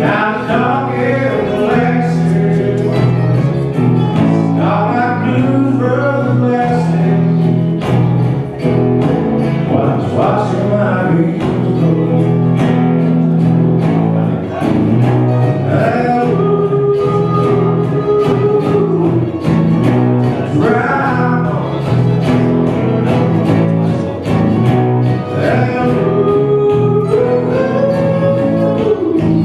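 A man singing a song live, accompanying himself on an archtop acoustic guitar, with a mandolin playing alongside. The sung line holds long notes in places.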